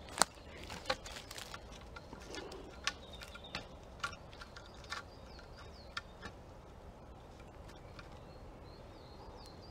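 A small bird calling in runs of high, quick chirps, twice, around the middle and near the end, over quiet forest ambience. Sharp clicks and cracks come through as well, the loudest just after the start and then about one a second for the first six seconds.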